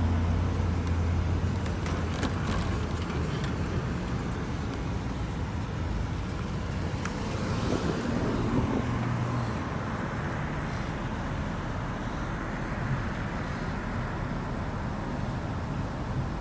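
Steady engine and road rumble of a car heard from inside the cabin while it drives, with a few light clicks about two to three seconds in.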